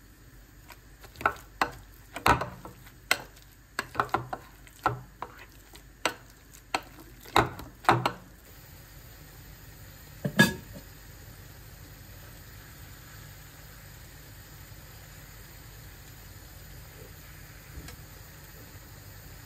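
A metal potato masher knocks and scrapes against a glass bowl as boiled potato is mashed, about a dozen sharp knocks over the first eight seconds. After one loud clank, beef pieces frying with butter in a pan give a steady soft sizzle.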